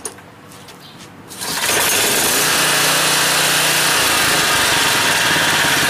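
A Generac 4000-series portable generator's gasoline engine starts up about a second and a half in, then runs loudly and steadily.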